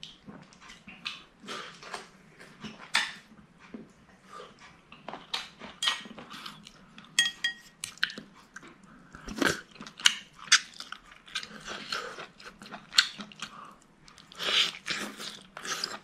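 A person eating noodles: repeated slurps and wet chewing in short irregular strokes, with a light clink of chopsticks on the bowl about seven seconds in.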